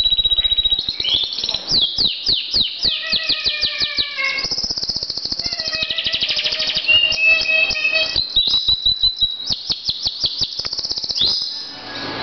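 Domestic canary singing a long, varied song. It runs through rapid trills and quick series of high, downward-sweeping notes, several a second, with a brief rising sweep near the end.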